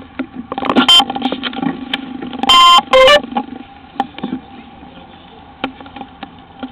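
Close handling noise of a small camera being gripped and moved by hand, with scattered clicks and rubs over a steady low hum. About two and a half seconds in come two short, loud electronic beeps one after the other.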